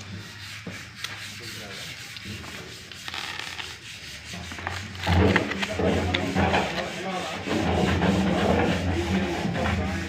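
Paper and cardboard rustling and rubbing as hands rummage in a cardboard box and pull out a folded paper instruction leaflet, getting louder about halfway through.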